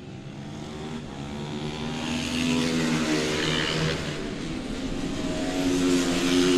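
Several supermoto racing motorcycles passing at race pace, their engines revving up and down through corners and gear changes. The sound grows louder, peaking about six seconds in as the bikes come closest.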